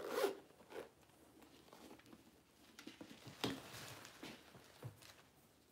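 Handbags being handled and moved about: soft rustles and light knocks, the loudest a dull bump about three and a half seconds in as a large leather tote is lifted and swung up.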